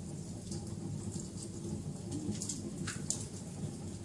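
Wood fire crackling, with irregular sharp pops and snaps over a steady low rumble.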